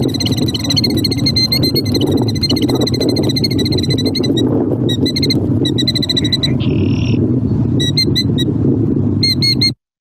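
Killdeer giving alarm calls during a broken-wing distraction display, the behaviour it uses to draw a predator away from its nest. The calls run as a rapid string of notes for the first few seconds, then come in short separate bursts, over a steady low rumble. The sound cuts off suddenly near the end.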